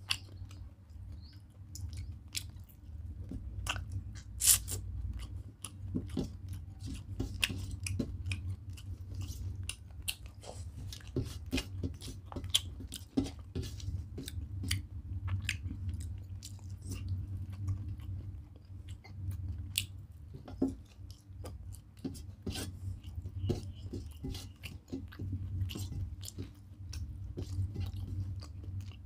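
Close-up chewing of chicken curry and rice eaten by hand, a stream of irregular short mouth clicks with a sharper one about four seconds in, over a steady low hum.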